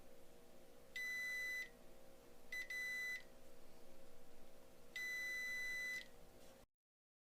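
Electronic bench-instrument beeping: three beeps on one steady high tone, the second briefly broken, the third the longest, over a faint steady hum. The sound cuts out completely near the end.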